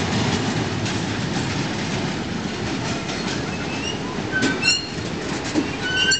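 Railvac train passing close by, its wheels rumbling and clicking over the rails, with brief high-pitched wheel squeals about four and a half seconds in and again near the end.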